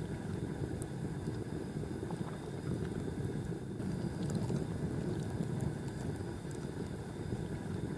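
Campfire burning with faint, sparse crackles over a steady low rumble.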